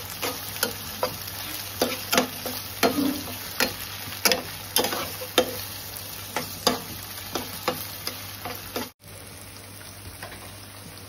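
Chicken pieces with onion and green chilli sizzling in oil in a nonstick pan while a spatula stir-fries them, scraping and tapping the pan about twice a second. The strokes stop about nine seconds in, leaving steady sizzling.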